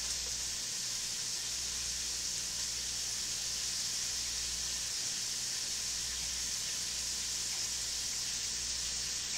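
Food frying in a pan: a steady, even sizzle with a low hum underneath.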